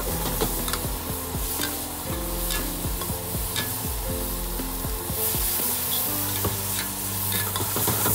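A metal spatula scraping and clacking against a steel wok as food is stir-fried over a gas burner, with steady sizzling underneath and irregular sharp clacks from the spatula striking the pan.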